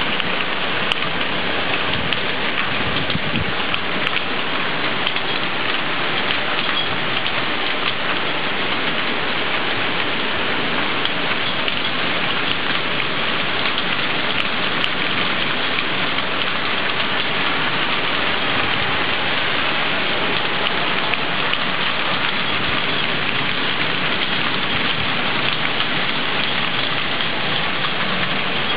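Heavy downpour of rain and hail, a steady dense rush with many fine ticks of drops and hailstones striking.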